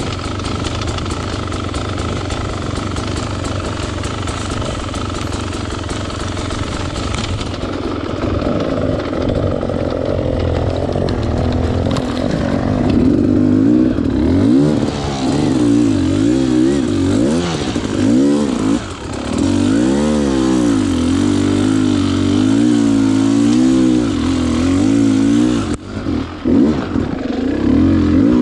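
Dirt bike engine running over rough trail, first at a fairly steady pitch, then revving up and down repeatedly as the throttle is worked, with two short drops in level in the second half.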